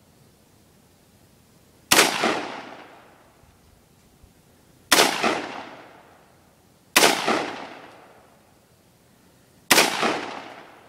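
AR-15 rifle fired four times in slow, unevenly spaced semi-automatic shots, each crack followed by an echo that dies away over a second or so.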